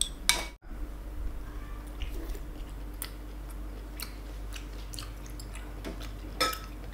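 Chewing of boiled pork intestine: soft mouth sounds with scattered small clicks. A sharp click comes just after the start.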